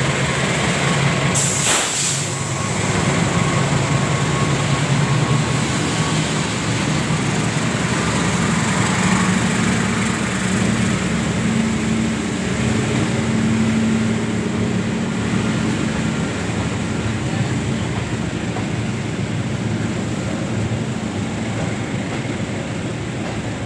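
Ranggajati passenger train running on the rails with a steady rumble, and a brief sharp noise about two seconds in.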